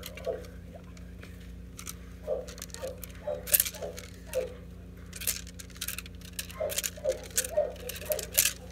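Wooden training stick tapping and clacking in sharp irregular knocks, spaced out at first and coming in a quicker run over the last couple of seconds.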